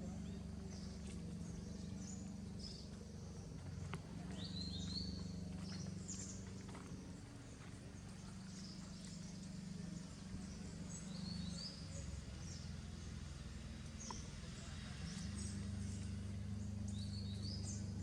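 Small birds chirping in short, repeated high calls over a steady low rumble of outdoor background noise.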